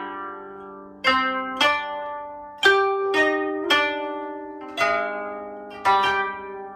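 Koto plucked with finger picks, playing a slow classical melodic line: single notes and a few quick pairs, each ringing and fading before the next. The left hand presses strings beyond the bridges, bending some notes.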